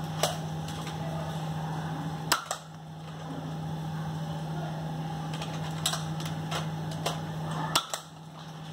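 Nerf foam-dart blaster firing, with two loud sharp snaps about two seconds in and near the end and several lighter clicks between them, over a steady low hum.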